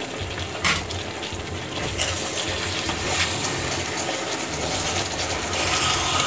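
Pork chops and pineapple in sauce simmering and sizzling in a stainless frying pan, steady and hissing, as a metal spoon stirs through it. Two light knocks sound in the first two seconds.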